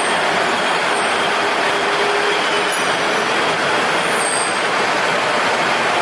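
Polishing machine working a metal generator part: a loud, steady hiss with a few brief high squeals.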